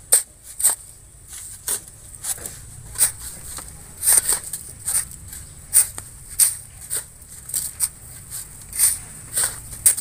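Several steel shovels digging into sand and gravel by hand: short, sharp scrapes and crunches at an uneven pace, about two a second, as sand is loaded into a dump truck.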